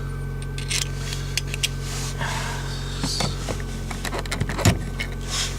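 Scattered plastic clicks and scrapes from a screwdriver prying the old exterior door handle out of a car door, the sharpest knock near the end. Under them runs the steady hum of the car's heater blower motor.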